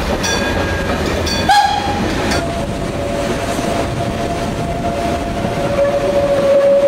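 Steam locomotive whistle of a 1916 Furka steam cogwheel train: a short higher note about one and a half seconds in, then a long steady whistle held through the rest, over the running noise of the train.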